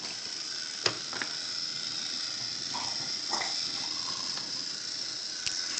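Wooden toy trains clicking and knocking lightly on a wooden track: two small clicks about a second in and another near the end, over a steady hiss.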